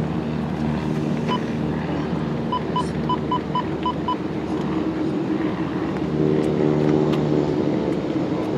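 Steady low engine rumble of airport and traffic noise, swelling slightly near the end. A single short electronic beep about a second in is followed by a quick run of six short beeps, about four a second.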